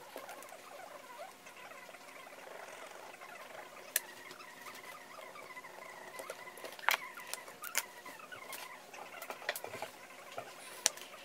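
Hands handling leather pieces, a marker and a paper strip on a cutting mat: light scratching and rustling, with a few sharp clicks and taps of tools and leather set down.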